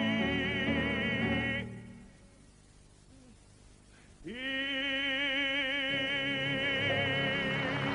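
Show music with a singer holding long notes with strong vibrato: one note ends about a second and a half in, the music drops away for about two seconds, then the voice slides up into another long held note over the accompaniment. A hiss builds under it near the end.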